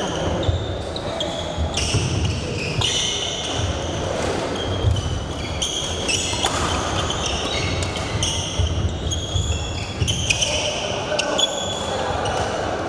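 Badminton doubles rally on a wooden court. Rackets strike the shuttlecock, shoes squeak in short high chirps and feet thud as the players lunge and recover, all in an echoing hall.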